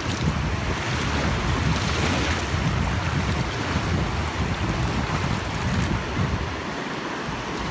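Shallow ocean surf washing in and out around the feet, with wind buffeting the microphone as a low rumble.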